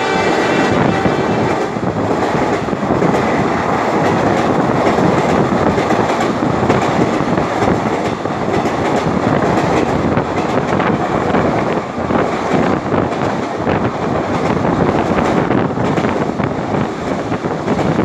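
Indian Railways passenger coaches rushing past at speed: a loud, steady rumble and clatter of wheels on rail. The tail of the locomotive's horn dies away about a second in.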